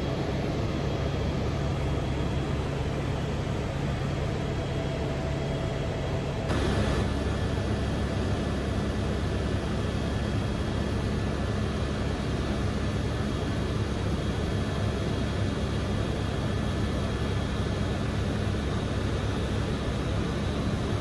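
Steady drone of a helicopter's engine and rotor in flight, with a low, even hum under a wide noise. It gets a little louder and fuller about six and a half seconds in.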